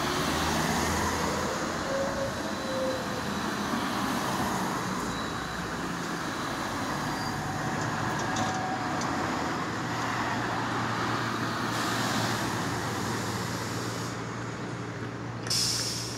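Street traffic passing: a steady rush of tyre and engine noise, with a low steady hum coming in about two-thirds of the way through and a short hiss near the end.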